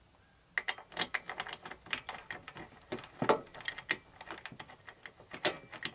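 Rapid, irregular clicking and light metallic knocking of small metal spacers against a motorcycle's rear shock mount as they are worked into place by hand, starting about half a second in, with two louder knocks about three seconds in and near the end.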